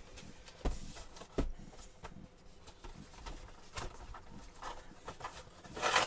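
Handling of an action figure's cardboard and plastic packaging: a few light knocks and clicks, with a short rustle near the end.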